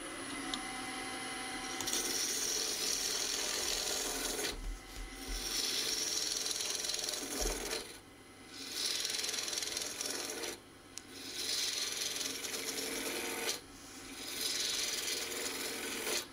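A hand-held turning tool cutting a spinning yew blank on a wood lathe, the top end being worked down, over the lathe's low running hum. The hiss of the cut comes in about five passes of roughly two seconds each, with short lulls between them.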